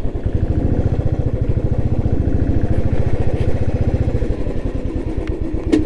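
Motorcycle engine running steadily with a rapid, even beat. Its deepest part eases a little about four seconds in.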